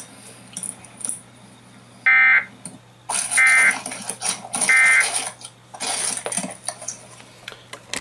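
Emergency Alert System data tones: three short, evenly spaced bursts of warbling two-tone digital signal, about a second and a bit apart, their shortness typical of the end-of-message signal that closes an EAS alert.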